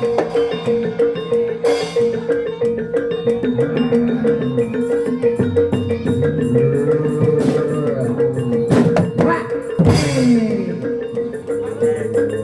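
Live gamelan music accompanying a Barongan Blora dance, with hand drums and mallet-struck metal keys playing a steady, dense rhythm.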